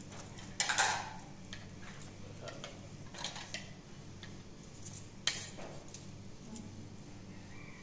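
Metal utensils clinking and scraping against cookware a few separate times, the loudest about a second in, over a steady low hum.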